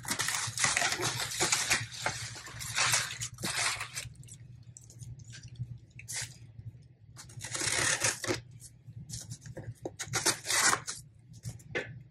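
Plastic bubble wrap crinkling and tearing as it is pulled off a cardboard box, in several noisy bursts with a quieter stretch in the middle.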